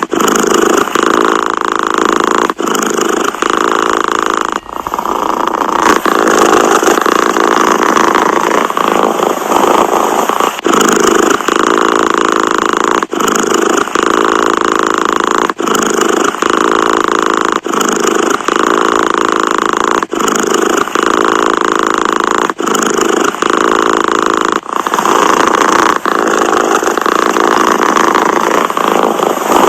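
Domestic cat purring close to the microphone, a continuous rumbling that breaks briefly and resumes about every two to two and a half seconds as the cat breathes in and out.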